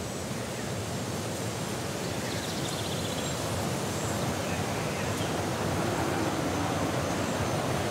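A steady rushing noise from the film's sound design, with no clear tone or beat, slowly growing louder.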